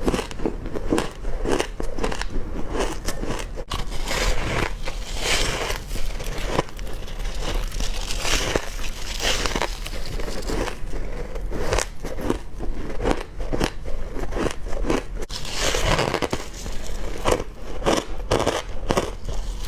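A person biting and chewing hard crushed ice close to the microphone: dense, repeated crunching and crackling with no pause.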